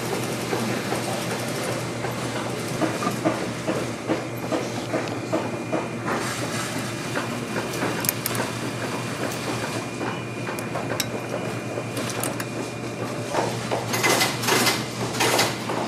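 Cylinder-arm leather patcher sewing machine stitching through a boot's leather upper: a steady, rapid clatter of needle strokes over a motor hum, growing louder and sharper for a second or so near the end.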